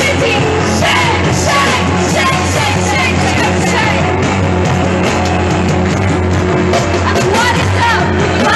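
Loud live band music with a woman singing and yelling into a microphone over a steady bass.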